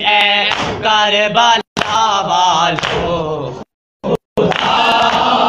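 Men's voices singing a noha, the Shia lament, unaccompanied, with a chanted melody that rises and falls. The sound cuts out abruptly to silence a few times.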